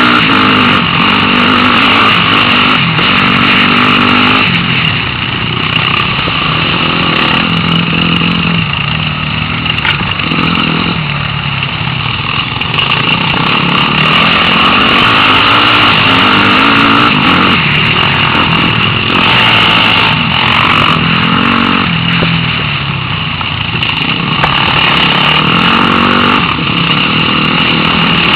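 Off-road dirt bike engines running loud, revving up and down over and over, with the pitch rising and falling.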